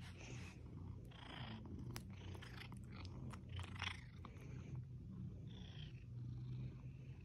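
Siamese cat purring steadily, close up, with a few brief soft rustles over the purr.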